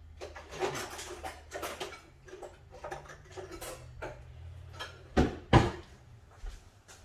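Metal kitchen utensils clicking and rattling as a cluttered drawer is rummaged through, with two louder knocks about five seconds in.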